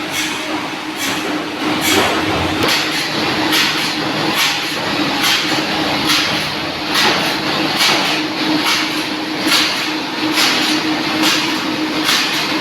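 Sawmill machinery running steadily: a constant hum with a regular swishing stroke a little more than once a second.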